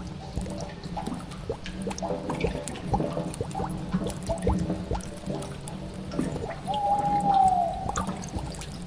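Spooky cave ambience: water drips and trickles over a steady low drone. About two-thirds of the way in, a long moaning tone rises above the rest and sags in pitch as it fades.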